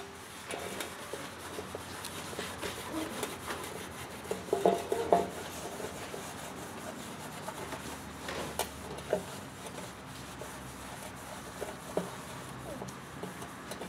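Red shop rags rubbing and wiping the inside of a removed metal 4L60E transmission pan, cleaning out the old fluid, with a few light knocks and clicks as the pan is handled.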